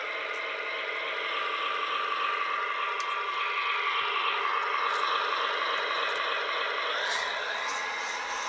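Simulated Ural-4320 diesel engine sound from a DIY Arduino engine sound module, played through its small tinny speaker. The engine runs steadily, then revs up and back down briefly about seven seconds in.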